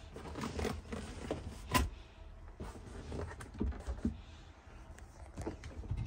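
Scattered light knocks and clicks of handling and movement inside a camper van's living area, with one sharper click just under two seconds in.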